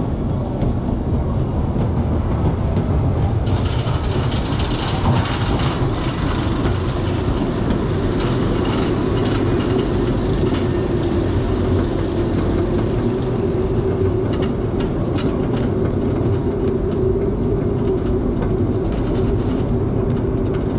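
Theme-park ride vehicle running on its rails: a steady rumble with wheel-on-track noise, joined by a steady hum from about eight seconds in.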